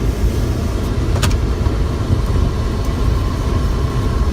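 Steady low rumble of a running vehicle, with a single short click about a second in.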